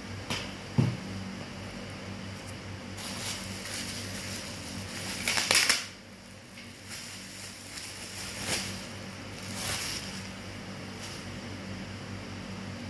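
Items and packaging being handled: a sharp knock about a second in, a louder scraping rustle around the middle, and a few lighter knocks, over a steady low hum.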